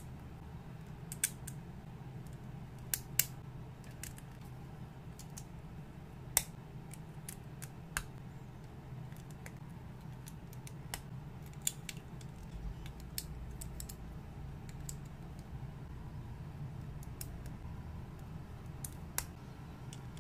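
Plastic building bricks being handled and pressed together, giving irregular sharp clicks and snaps a second or more apart.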